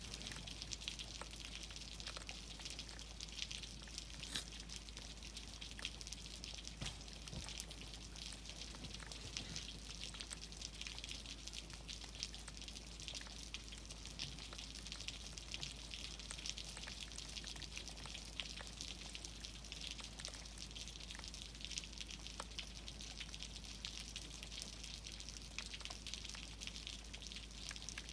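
Light rain falling steadily on a concrete slab and lawn: an even hiss sprinkled with the close ticks of single drops landing.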